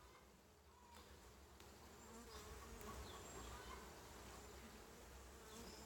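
Honey bees buzzing around an open hive during a frame inspection: a faint, wavering hum that swells a little after a couple of seconds.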